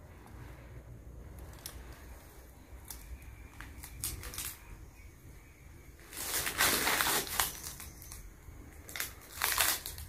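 Footsteps crunching over dry debris and rubble on a floor. After a quiet stretch there are a few steps from about six seconds in, then more near the end.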